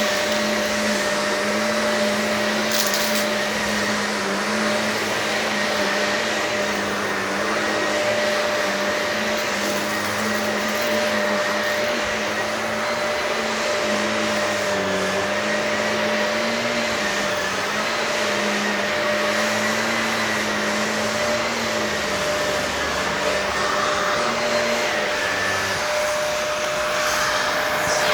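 Shark upright vacuum cleaner running steadily over carpet, its motor hum and whine wavering slightly as it is pushed back and forth.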